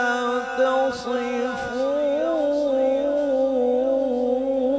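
A male qari reciting the Quran in melodic tajweed style into a microphone, drawing out one long held note whose pitch wavers in ornaments.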